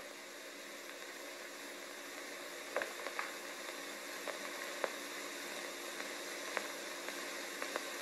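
Steady hiss from an old film soundtrack, with a handful of sharp, irregularly spaced clicks.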